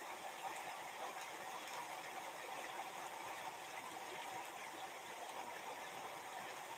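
Steady, even background hiss with no distinct events: room tone.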